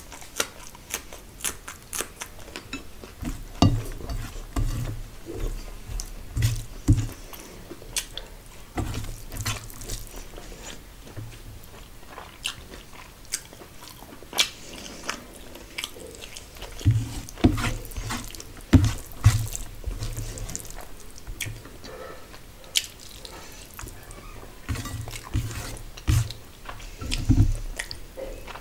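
Close-miked eating sounds: a person chewing and biting rice, curry and a raw green chilli, with many short crunchy clicks and wet mouth sounds. Groups of low thumps come and go.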